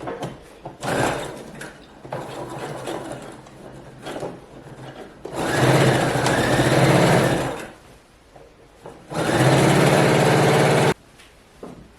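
Electric sewing machine stitching in two short runs: the first starts about five seconds in and lasts about two seconds, the second runs for about two seconds near the end and stops abruptly. It is sewing a 2 cm stretch of a skirt's side seam below the zipper opening. Softer irregular sounds come before the first run.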